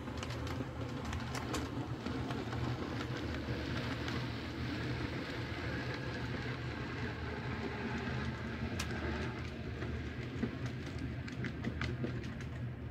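HO scale model train, a steam locomotive pulling ore cars, rolling past with a steady hum and rumble of wheels on track. Scattered sharp clicks as wheels cross rail joints come closer together near the end.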